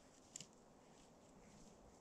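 Near silence, with one brief faint click about half a second in.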